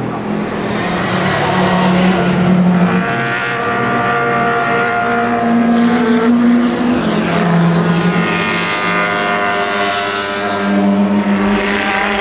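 Several Le Mans prototype race cars passing in succession, their engine notes overlapping and sliding up and down in pitch as each one goes by.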